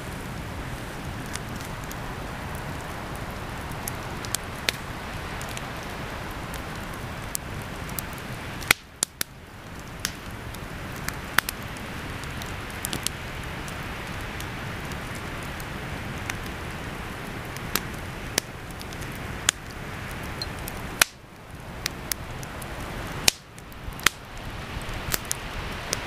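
Wood campfire burning: a steady hiss of flames with sharp, irregular pops and crackles from the burning logs, a few of them louder than the rest.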